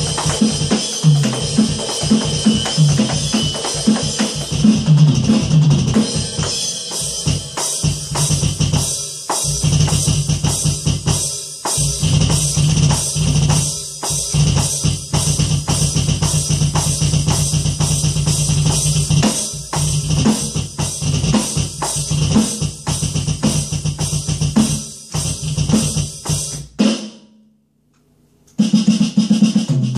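Roland V-Drums electronic drum kit played as a busy beat of drums and cymbals. It stops for about a second and a half near the end, then starts again.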